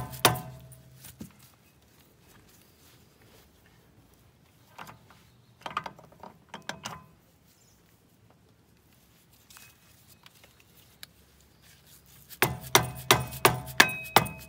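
Rapid hammer taps with a metallic ring on the steel front axle knuckle of a Kubota L3830 tractor, at about four a second, tapping the bottom piece and bevel gear shaft home until they seat. The taps stop briefly after the start and give way to faint clicks and rattles of the parts being wiggled, then a second fast run of taps comes in near the end and is the loudest part.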